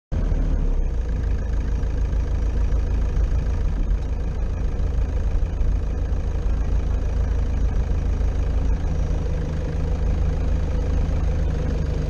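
Car engine and road noise heard from inside the cabin as the car drives slowly: a steady low rumble.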